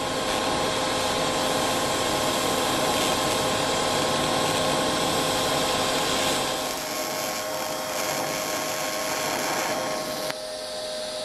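TIG welding arc on steel: a steady hiss with a thin steady whine running through it. The hiss eases a little about two-thirds of the way in and drops again near the end.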